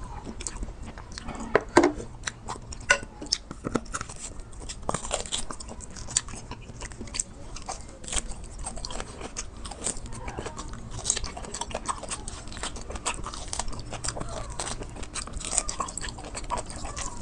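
A person eating bulalo (beef shank soup) close to the microphone: chewing and biting, with many short, sharp mouth clicks throughout.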